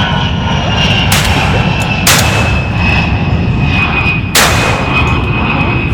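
Three shotgun shots at birds in flight, about one, two and four seconds in, the second and third loudest, over a steady loud background noise and a thin high whine.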